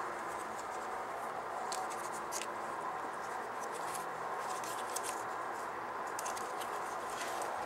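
Steady background hiss with faint, scattered light clicks and rubbing from a plastic Rubik's cube being handled.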